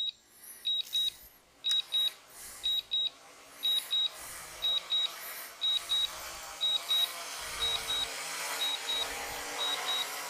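DJI Mavic 3 controller beeping in quick pairs, about one pair a second, the alert it gives while the drone auto-lands. From about four seconds in, the drone's propellers grow steadily louder as it descends toward the driveway.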